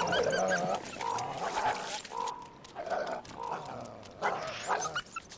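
Wild canids calling: a series of short, wavering whines and yelps with growling undertones.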